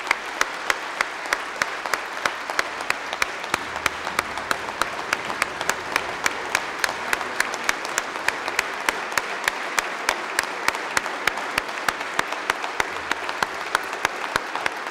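A large crowd of parliament members applauding, the clapping falling into a steady unison beat of about three claps a second over a continuous wash of applause.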